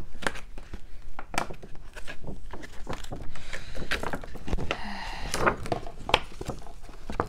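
A clear plastic moss pole being folded and handled, its stiff plastic mesh making irregular clicks and knocks, with a stretch of plastic rustling and crinkling about halfway through.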